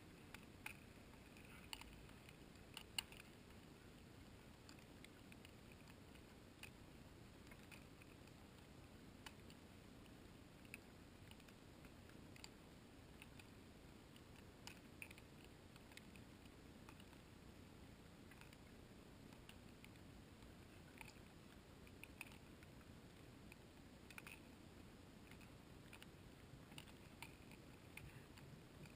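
Near silence with faint scattered clicks and ticks at irregular intervals, the loudest about three seconds in.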